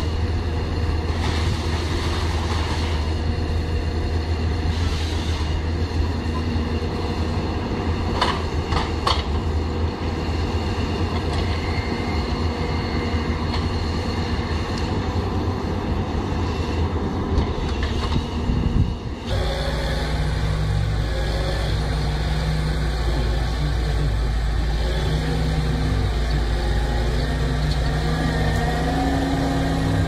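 Diesel engine of a Hyundai tracked excavator running steadily, with a few sharp knocks about 8 and 17 seconds in. About 19 seconds in the sound cuts abruptly to a different diesel engine, a Ponsse Buffalo forwarder, running steadily with a low hum.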